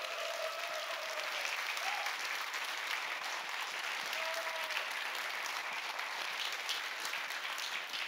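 Audience applauding steadily, dying away right at the end.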